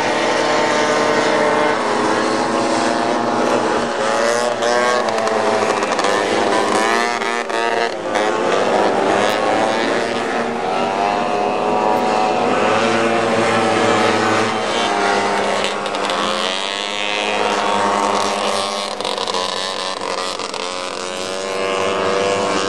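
Several racing snowmobiles' two-stroke engines running at high revs together, their pitch rising and falling as the sleds accelerate through the turns and pass.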